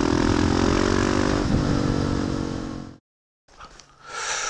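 Husqvarna 701 Supermoto single-cylinder engine running under way through an aftermarket Wings exhaust, with wind rushing over the helmet camera. The engine note sinks slightly before cutting off abruptly about three seconds in. After a brief silence, a quieter steady hiss follows.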